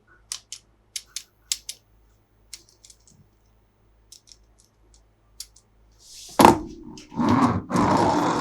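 Hard plastic toy parts and packaging clicking and tapping as they are handled, then a loud rough scraping, rustling noise from about six seconds in.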